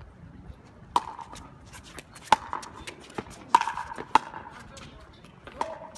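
Pickleball rally: paddles striking the plastic ball with four sharp, ringing pops, the last two closer together, between fainter taps of the ball and shoes on the hard court.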